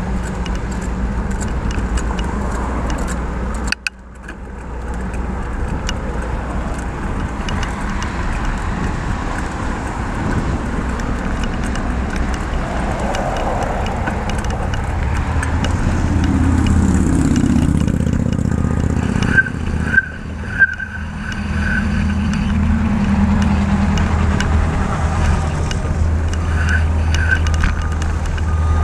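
Cars and other road traffic passing on a highway beside a moving bicycle, with a steady low rumble and one vehicle sweeping past about halfway through. A run of short high beeps comes a little past the middle, and two more come near the end.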